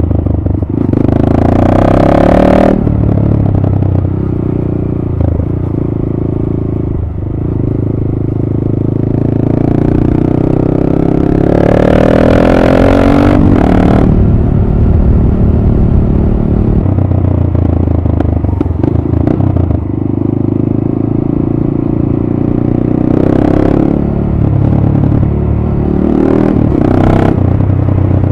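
Honda MSX/Grom 125's single-cylinder four-stroke engine through an aftermarket TYGA Performance exhaust, ridden on the road. The revs rise in four pulls, near the start, about halfway, and twice near the end, and settle back to a steady cruise in between.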